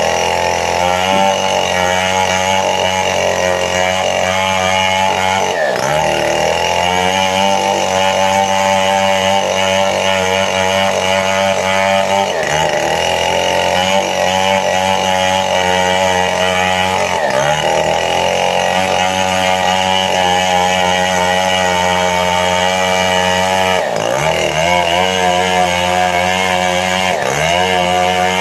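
Chainsaw running at high revs while cutting sengon wood. Its pitch dips sharply and recovers every five to six seconds as the saw takes load in the cut and frees up again.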